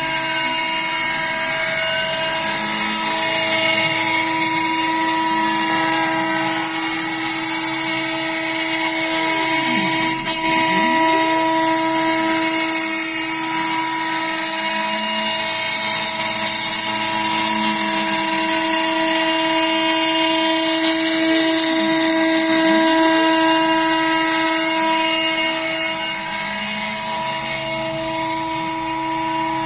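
CNC router cutting a loudspeaker front panel: the spindle runs with a steady whine made of several fixed tones, while fainter tones swoop down and back up every several seconds as the machine moves. The sound drops a little near the end.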